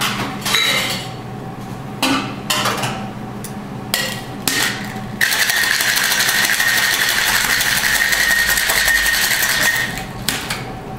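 A Boston shaker (metal tin and mixing glass) with ice: several short clatters of handling in the first few seconds, then about five seconds of fast, steady rattling of ice as the cocktail is shaken hard. The rattling stops about ten seconds in, followed by a few light knocks as the tin and glass are handled.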